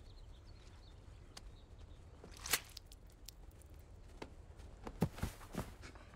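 A few short rustles and soft thumps from people moving on grass, over a faint low outdoor background: one sharp rustle about two and a half seconds in and three quick thuds near the end.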